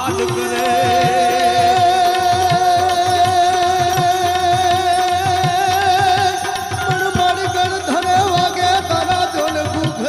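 Gujarati folk devotional music: a long held, slightly wavering note over layered accompaniment, with regular drum strokes. The held note gives way to shorter notes about two-thirds of the way through.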